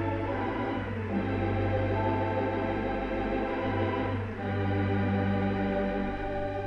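Theatre pipe organ, a Wurlitzer, playing sustained chords in a slow ballad; the chords change about a second in and again just past four seconds.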